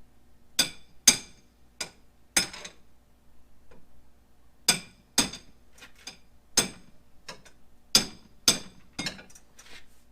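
Sharp metallic clinks and taps of hand tools striking a small go-kart wheel rim while a tire is worked on: four quick strikes, a pause of about two seconds, then about nine more, each with a short bright ring.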